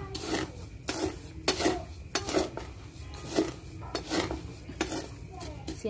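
Wooden spoon stirring and scraping dry-roasting rice grains in a black pan, in repeated short strokes, the grains rustling as they are turned over while being roasted dark for rice coffee.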